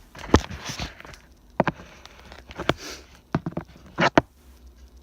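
Scattered, irregular knocks and clicks of a cardboard box and its plastic wrapper being handled while the wrapper is cut off with a dull knife.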